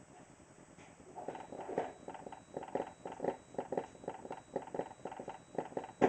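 Custom 12-inch subwoofer driven hard at long excursion, giving a fast uneven run of thumps and slaps, several a second, starting about a second in and ending in one sharp loud knock.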